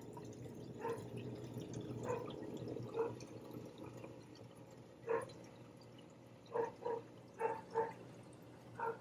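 Water dripping and plinking into a reef aquarium sump, about nine irregular drops, some in quick pairs near the end. A steady low equipment hum runs underneath.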